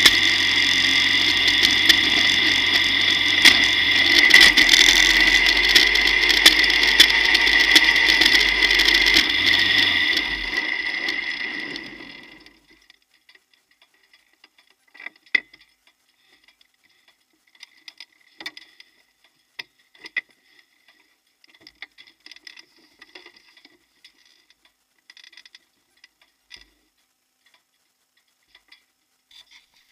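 Turbocharged 1.4 K-series engine of a Vision V89 clubmans car running steadily, then dying away about ten to twelve seconds in as it is shut off. After that only faint, scattered clicks and ticks.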